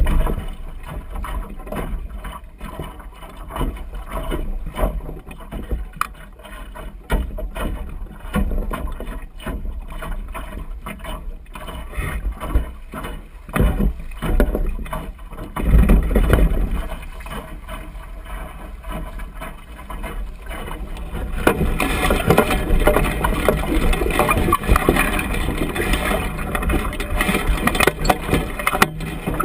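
Water splashing and rushing along the hull of a small sailing dinghy under way, with wind rumbling on the microphone. The rush of water grows louder and steadier about three quarters of the way through.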